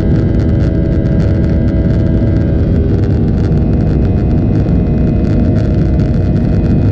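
Cabin noise of a Boeing 737-800 in flight, heard from a seat by the wing: its CFM56-7B turbofan engines running steadily. A dense rushing hum carries several steady whining tones.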